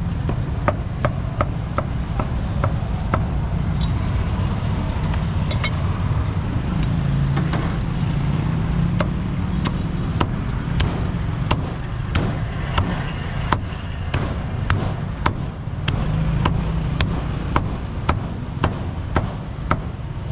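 Meat cleaver chopping crispy roast pork on a thick round wooden chopping block: sharp knocks about two a second, in runs near the start and through the second half with fewer strokes in the middle. A low steady rumble of street traffic lies underneath.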